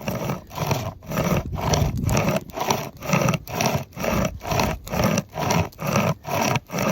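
SOL pocket chainsaw, a hand-pulled flexible toothed chain, sawing through a tree trunk about three inches thick: a steady rhythmic rasp, about two strokes a second.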